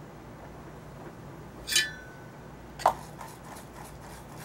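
A small metal tool clinks once against a hard surface with a short ring, about two seconds in. A sharper click follows about a second later, then a few faint ticks, over a low steady hum.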